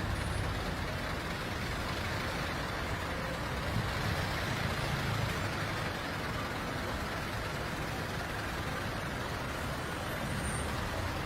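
Steady road traffic noise, with heavy vehicles' engines running low and even.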